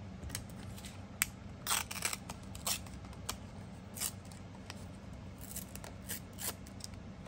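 A small paper label being cut and handled: a string of short, crisp snips and rustles, with a sharp click about a second in.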